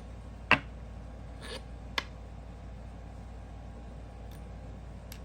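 A few short, sharp clicks and taps of a metal fidget spinner and its small ball bearings being handled during a bearing swap, the loudest about half a second in.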